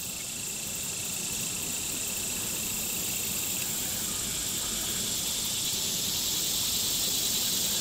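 Steady chorus of insects, a continuous high-pitched buzzing hiss, with a thinner, lower steady tone in it that drops out about halfway through.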